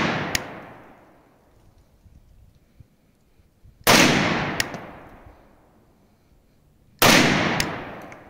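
Molot VPO-156 (Vepr) AK-pattern rifle fired as slow single shots: two shots about three seconds apart, following the dying echo of one fired just before. Each shot rings out in a long echo, and a sharp click comes a little over half a second after it.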